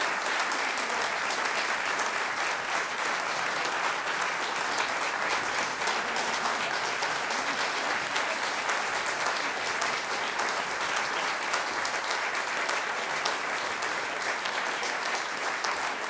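Large audience applauding steadily, a dense, unbroken clapping of many hands.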